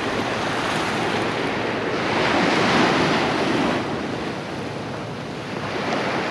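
Surf washing up on a sandy beach, with wind on the microphone. A wave surges in about two seconds in and fades again by about four seconds.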